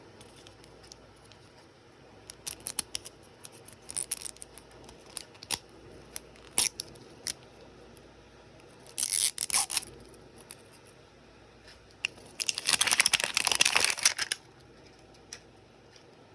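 Plastic packaging of a MiniVerse capsule being handled and torn open: scattered light clicks and crinkles, then a short burst of tearing and a longer one of about two seconds near the end.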